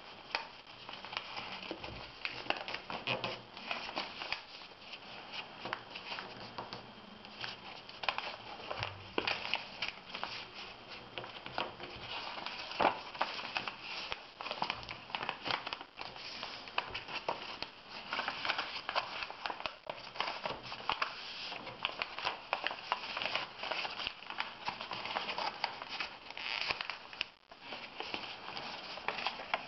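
A sheet of white paper being folded into a paper airplane by hand: irregular rustling and crinkling with many small sharp crackles as the folds are pressed down.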